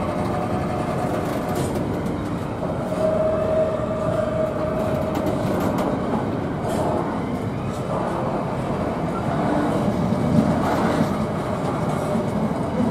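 Empty intermodal container flat wagons of a freight train rolling past at close range, a steady rolling clatter of wheels on the rails. A held whining tone sounds for about two seconds, beginning about three seconds in.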